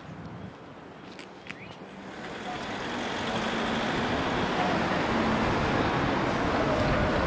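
Double-decker bus approaching and driving past close by: engine and tyre noise swells from about two seconds in and stays loud, with a low steady engine hum under it.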